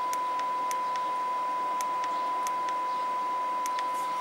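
Kenwood TS-2000 transceiver's speaker giving a steady, unwavering high tone over receiver hiss, the sound of a test signal being received in FM, with scattered faint clicks.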